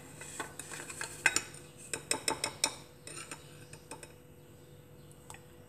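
Metal spoon scooping sugar from a glass bowl, clinking and scraping against the glass in a run of light taps during the first three seconds, then going quiet.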